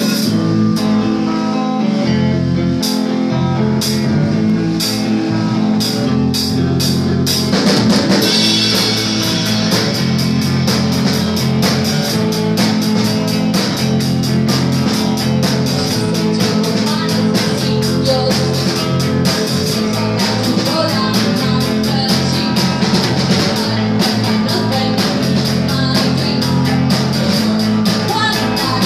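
Loud rock music with guitar and drums. Held low notes sit under sparse cymbal hits, then the full drum kit comes in about seven and a half seconds in and keeps a steady beat.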